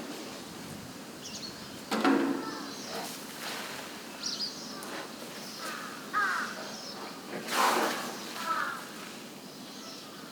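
An African elephant sand-bathing, flinging sand or dirt over its body in a few short noisy bursts, about two seconds in and again near eight seconds. Crows caw several times in between.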